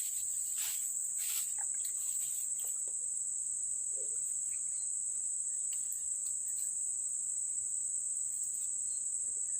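Insects chirping in a steady, continuous high-pitched chorus, with a few faint clicks in the first couple of seconds.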